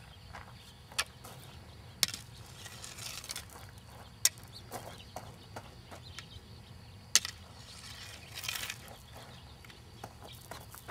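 Gravel crunching and small stones clicking as a toddler steps about on a gravel pile and pokes and scrapes it with a wooden stick. There are a few sharp clicks and two short bursts of crunching.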